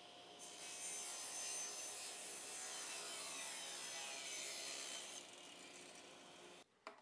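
Table saw crosscutting a wide board fed on a miter gauge: a faint, steady motor whine, with the hiss of the blade cutting through the wood from about half a second in until about five seconds in.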